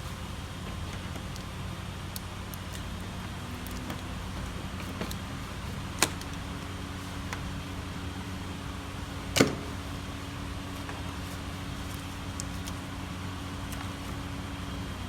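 Two sharp metallic clicks from hand tools and parts being worked in a car's engine bay, about three and a half seconds apart, the second louder, over a steady low hum.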